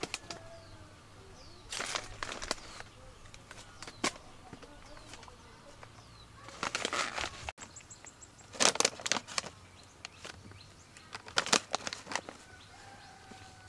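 Several short bursts of rustling noise, each under a second long, a few seconds apart, with faint bird chirps between them.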